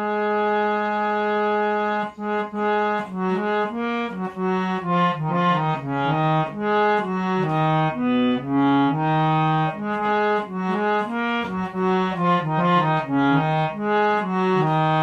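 Harmonium playing a bhajan's instrumental introduction: one note held for about two seconds, then a melody of short, stepping notes.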